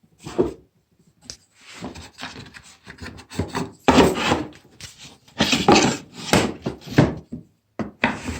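Gears being swapped by hand on a homemade gear-driven lathe: irregular scraping, rubbing and knocking as a gear is slid off a shaft and another fitted on.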